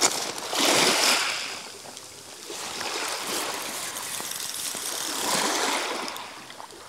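Small waves washing onto a shingle beach, swelling about a second in and again around five seconds.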